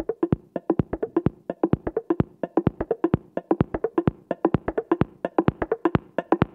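Electronic background music starting abruptly with a fast, even rhythm of short, clicky percussive notes, about six or seven a second.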